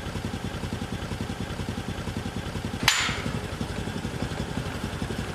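Motor scooter engine idling with a steady pulsing beat, and a single sharp knock about three seconds in.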